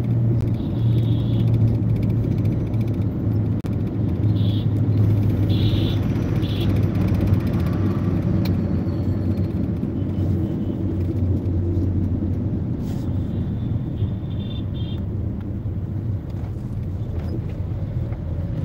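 Steady low engine hum and road rumble of a moving car, heard from inside the cabin.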